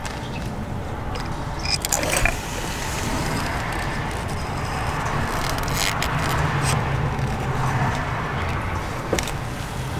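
A few light metallic clicks and taps as a diesel fuel injector is worked down into its bore in the cylinder head, over a steady low background hum.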